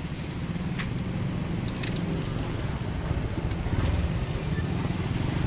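Steady low rumble of motor traffic, with a few short sharp clicks as plastic lids are pressed onto plastic drink cups.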